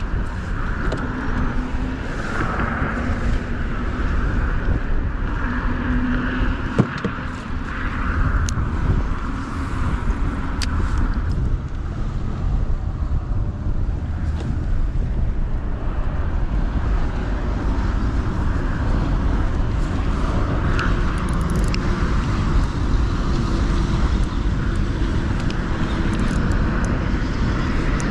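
Steady rumble of wind on the microphone mixed with traffic noise from a highway bridge, with a few faint clicks.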